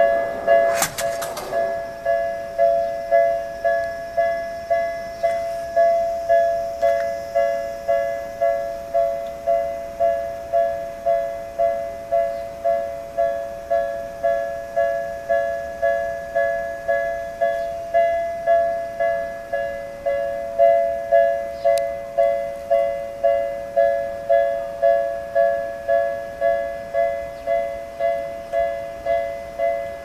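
Japanese level-crossing warning bell dinging repeatedly, an electronic ringing tone struck evenly about one and a half times a second, signalling that a train is approaching. A brief sharp clatter sounds about a second in.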